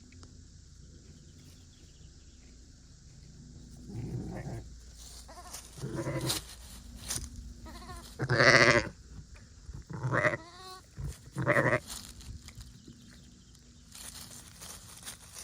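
Rough Fell sheep bleating about five times, each call wavering in pitch, the loudest about halfway through.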